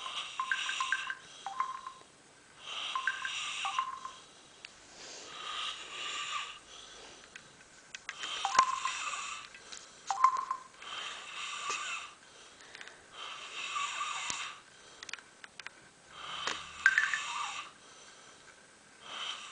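A man snoring loudly and raspily, one snore roughly every two seconds, each about a second long.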